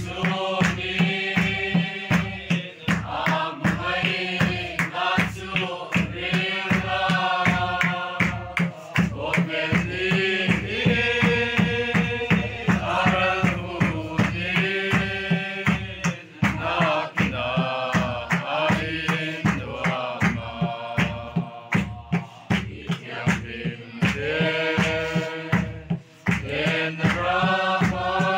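A crowd singing a slow Mizo mourning hymn (khawhar zai) in unison, kept in time by steady beats on a khuang, the traditional Mizo drum, about two beats a second.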